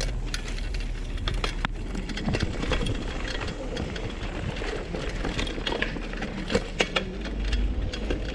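Vintage bicycle being ridden on a dirt trail: irregular clicks and rattles from the bike jolting over bumps, over a steady low rumble.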